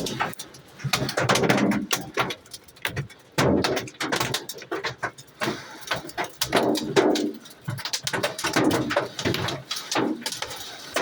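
Hailstorm: hailstones striking hard surfaces in a dense, irregular clatter of sharp knocks, with louder clusters every second or two.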